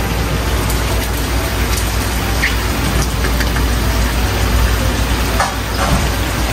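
Diced chicken and garlic sizzling in a frying pan over a gas burner: a steady, dense hiss over a low rumble. A few light clicks and taps come through about halfway and again near the end.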